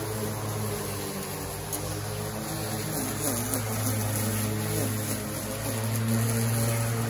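Greenworks 20-inch 12-amp corded electric lawn mower running at a steady hum while cutting grass, with a battery string trimmer running alongside, its pitch wavering.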